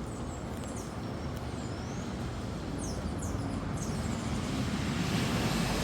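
Outdoor morning ambience: a steady rushing noise, like distant road traffic, growing louder over the last two seconds, with scattered faint bird chirps.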